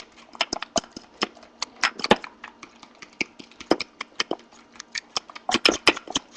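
Fork clicking against a bowl while beating raw eggs: quick irregular clicks, about three a second, coming faster a little over five seconds in.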